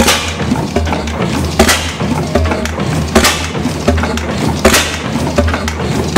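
Reid 15 hp two-cycle oilfield engine running at speed, with a sharp crack about every one and a half seconds, softer beats in between, and a low pulsing underneath.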